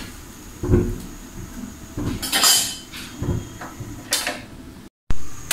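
Kitchen handling noises: a few dull knocks and clatters of dishes, the loudest a scraping rustle about two seconds in, with a sharp knock near the end.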